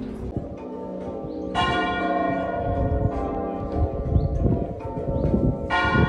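Muffled church bells rung full circle from ropes in a tower, leather muffles on the clappers dulling the strokes, as is done in mourning for the death of a Sovereign. A run of overlapping bell strokes, two of them, about a second and a half in and near the end, clearer and brighter than the rest.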